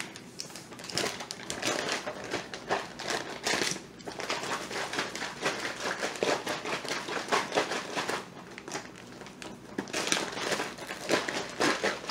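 Zip-top plastic freezer bag of salt brine being shaken hard, its plastic crinkling and rustling in rapid, irregular strokes with brief lulls about four and eight seconds in. The shaking dissolves the kosher salt grains into the brine.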